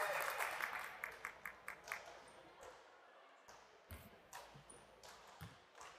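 Faint scattered clapping in a gymnasium dying away, then a few separate basketball bounces on the hardwood court as a player readies a free throw.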